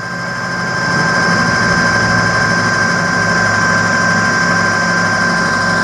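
Small cue lathe running with a steady motor whine while a microfiber cloth with polishing compound is held against the spinning ferrule and tip. The sound grows louder over the first second, then holds steady.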